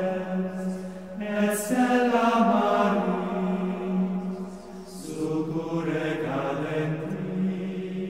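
Background music of voices chanting slowly, with long held notes that shift pitch every second or two over a steady lower note.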